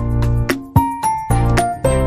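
Background music: a light instrumental track of short, decaying keyboard-like notes over a bass line.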